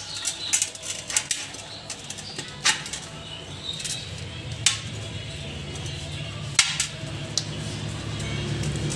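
Wooden sticks knocking and clicking against a stainless steel pot as they are wedged in to prop up a banana stem: a handful of scattered sharp taps. A low hum builds in the background from about halfway.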